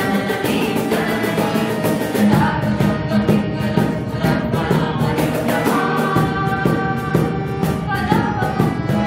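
A group of young voices singing together, accompanied by a harmonium, an acoustic guitar and a steady percussion beat.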